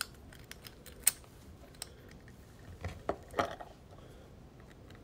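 Small plastic clicks and taps from hands handling a capsule-toy Kurohige Kiki Ippatsu (Pop-up Pirate) barrel and its plastic swords. There is a sharp click about a second in and a few duller knocks around three seconds in.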